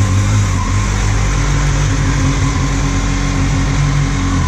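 Kawasaki Z800 inline-four motorcycle engine running steadily, heard through a helmet- or bike-mounted GoPro with a constant hiss of wind over the microphone.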